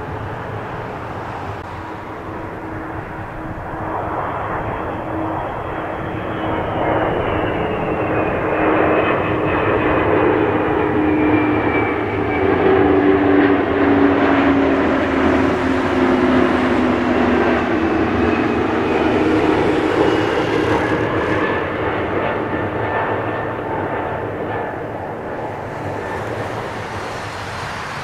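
Airbus A300 jet airliner on final approach passing close by, its two turbofan engines rising to a loud peak and then easing off as it goes away. Whining engine tones slide down in pitch as it passes.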